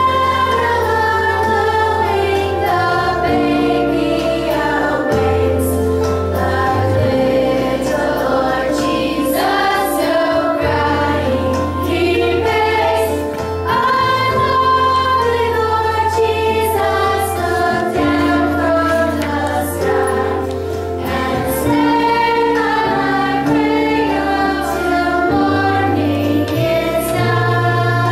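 Voices singing a song over an instrumental accompaniment with long held bass notes that change every couple of seconds.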